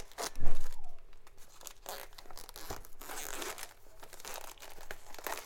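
Clear plastic shrink wrap being torn and peeled off a small cardboard box, crinkling irregularly in the hands, loudest about half a second in.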